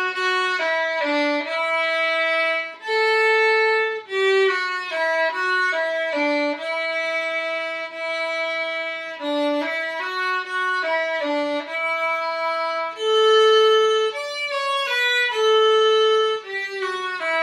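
A solo bowed string instrument playing a stepwise melody in D major, the notes slurred in groups of three to a bow, mixed with longer held notes.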